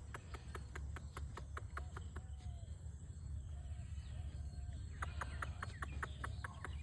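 Farm animal calls, short arched clucking calls about halfway through, over a rapid train of sharp clicks at the start and again near the end, and a steady low hum.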